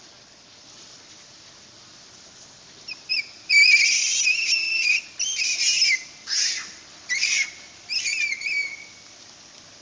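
Young Japanese macaque giving a run of high, wavering squeals, about five or six in a row, starting about three seconds in.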